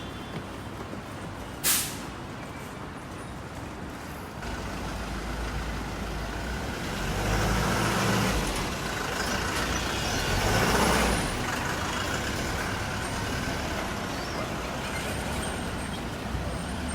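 Street traffic: the engine and tyre noise of passing vehicles, swelling twice near the middle as large vehicles go by, with one short sharp hiss about two seconds in.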